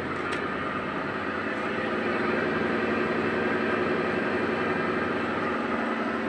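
LG top-loading washing machine running with an excessive, steady mechanical hum and rumble, several steady tones over an even noise. The technician traces this noise to the washer's clutch, rusted from water leaking in past its seal.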